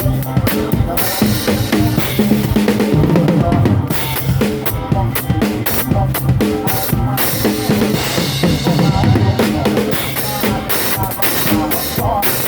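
Music with a drum kit playing: bass drum, snare and rimshot strikes over a low bass line.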